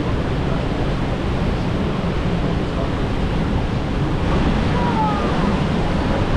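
Steady rush of wind buffeting the microphone together with rushing water.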